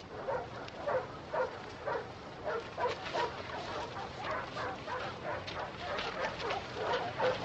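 Dog barking repeatedly in short calls, about two a second.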